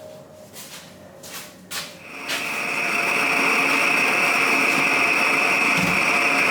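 Vintage brass gasoline blow torch: a few short scraping strokes, then about two seconds in the burner catches and runs with a loud, steady hiss.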